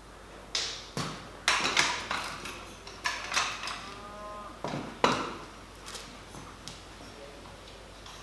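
Irregular metallic clanks and knocks as a jack or stand is handled and set under a steel truck bed frame, some strikes ringing briefly. A short metal squeal comes about four seconds in.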